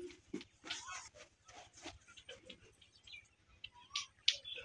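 Faint, scattered short animal calls.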